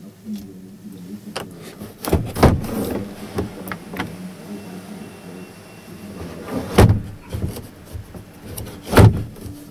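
MAN truck cab roof hatch being worked by hand with its push rod: clunks and rattles of the hatch and its latch over a low steady hum. There are loud thumps about two seconds in, around seven seconds in, and near the end.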